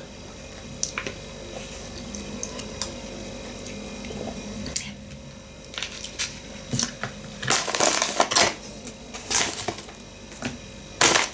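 A spoon clicking lightly against a plastic bowl, then a plastic snack bag of corn sticks rustling and crackling in several bursts as a hand reaches in and pulls some out near the end.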